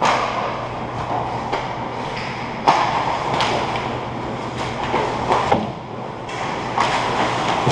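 Ice hockey play: skate blades scraping and carving across the ice, with sharp clacks of sticks and puck. The noise picks up suddenly at the start, and the loudest knock comes about two and a half seconds in.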